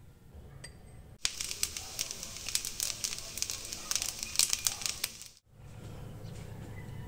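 Garlic fried rice crackling and sizzling in a hot frying pan: a dense run of sharp crackles that starts about a second in and cuts off suddenly after about four seconds.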